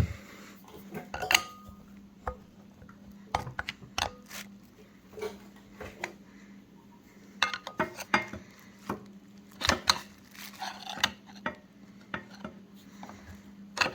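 Steel transmission parts and hand tools clinking and clanking irregularly, some knocks ringing briefly, as a planetary gearset jammed with metal debris is pried at to separate it from the clutch drums of an A904 automatic transmission.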